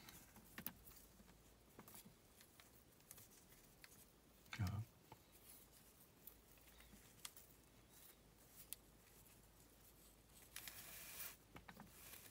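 Faint rustling and light clicks of Chinese-knotting cord being handled, threaded through loops and pulled by hand, with a brief louder rustle near the end.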